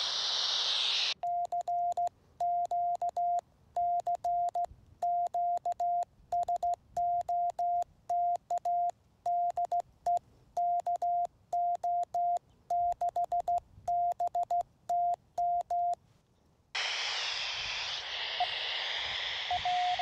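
Morse code on a ham radio: a single steady sidetone keyed in dots and dashes for about fifteen seconds as a CW call goes out on 2 metres. The radio then drops back to receive with a steady hiss of receiver noise, and a keyed Morse tone comes through the hiss near the end, the answering station.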